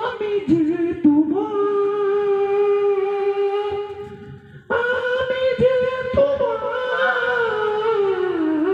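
A man's voice through a handheld microphone, imitating a ghostly wail from an old mansion: two long held wails, the second starting higher about halfway through and sliding down in pitch near the end.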